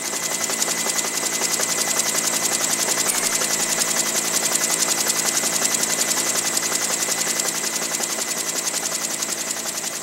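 Helicopter rotor chop: a fast, even pulsing with hiss, swelling in at the start and fading toward the end, over a faint steady high tone.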